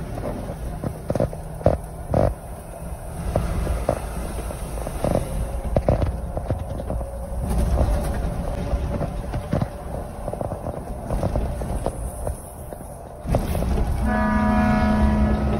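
Steady road and engine rumble of a Mercedes-Benz 1626 coach on the move, with short knocks and rattles scattered through it. A horn sounds steadily for the last second or two.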